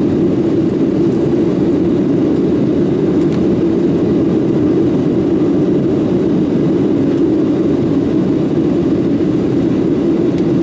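Cabin noise inside a Boeing 737-800 climbing after takeoff: a steady low drone of its CFM56-7B jet engines and the airflow, heard from a window seat behind the wing.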